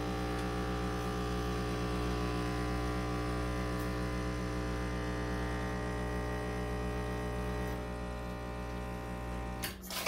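ECM Mechanika V Slim espresso machine's vibratory pump buzzing steadily while it pulls an espresso shot. Near the end the buzz cuts off with a short clunk as the E61 brew lever is lowered to end the shot.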